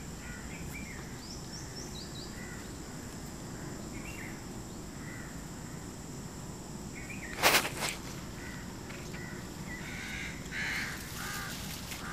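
Outdoor ambience with scattered short bird calls over a steady high-pitched hum, broken about halfway through by two sharp clicks in quick succession.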